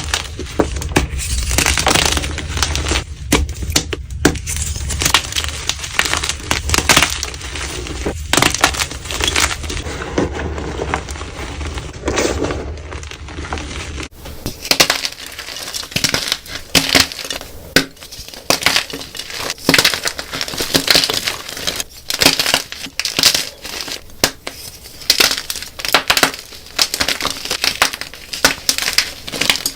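Dyed gym chalk blocks being crushed, a dense run of irregular dry crunches. A low hum sits under the first half and stops about halfway through, where the clip changes.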